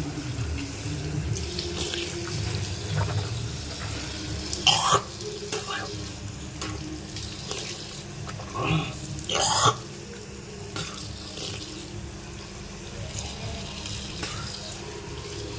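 Tap water running steadily into a washbasin, with a few short louder sounds about five and nine and a half seconds in.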